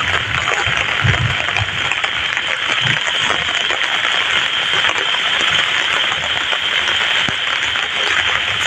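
Heavy rain falling, a dense steady patter, with a few low thumps in the first few seconds.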